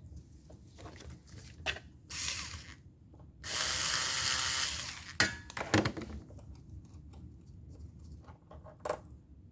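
Power screwdriver briefly running to back out the screws of a plate on an electric chainsaw's body, one short spin and then a steady spin of nearly two seconds, followed by a few sharp clicks of the screws and plate being handled.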